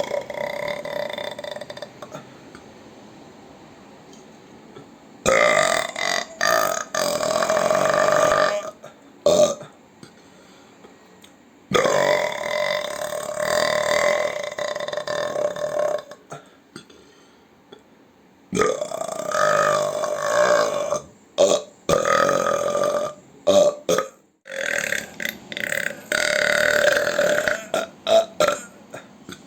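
A person belching, a run of long, loud burps lasting two to four seconds each, with shorter burps and brief pauses between them.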